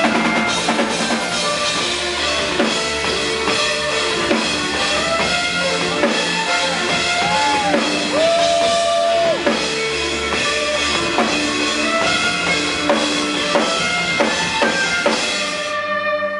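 Live dubstep violin music: an amplified violin plays sliding melodic lines over a heavy electronic drum beat. The music stops abruptly near the end.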